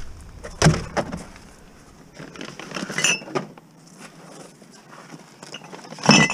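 Glass wine bottles clinking and knocking together in a paper bag as it is handled and set down in a plastic crate: a few separate clinks with a short ring, the loudest near the end.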